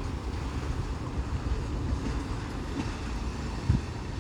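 Low, steady rumble of a freight train moving away, with wind buffeting the microphone and a short thump near the end.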